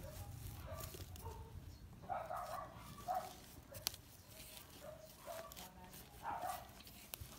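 Several short, faint animal calls at intervals, from domestic animals in the background, with a couple of small sharp knocks.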